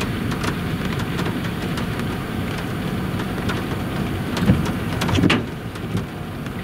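Cars driving by on wet pavement: tyres hissing over a steady low rumble, swelling as a vehicle passes about four to five seconds in.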